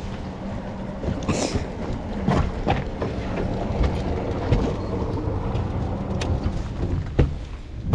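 A boat's engine running steadily, with irregular knocks and thumps over it and wind on the microphone.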